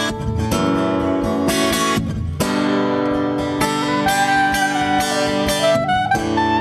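Acoustic guitar strumming chords, with a soprano saxophone playing a melody of long held notes over it.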